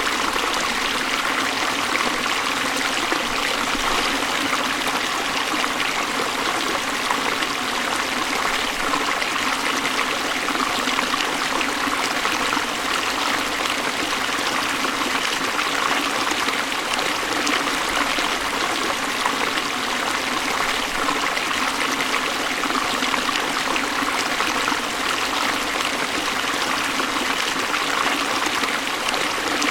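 Waterfall: water falling and splashing in a steady, unbroken rush, mostly hiss with little deep rumble.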